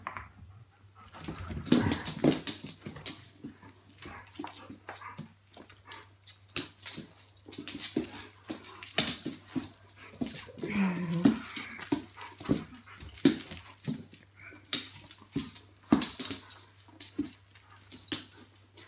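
A German Shepherd playing tug-of-war with a plush toy: irregular scuffling and soft knocks of paws and body on a sofa, with a brief dog whine about ten seconds in.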